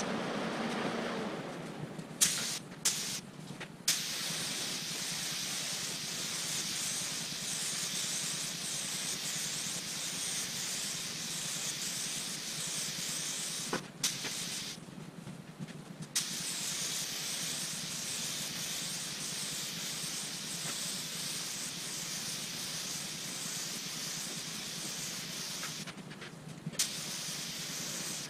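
Compressed-air paint spray gun hissing steadily as it sprays primer onto car body panels, in long passes that stop whenever the trigger is released: a few short spurts about two to four seconds in, a pause of about two seconds midway, and a brief pause near the end.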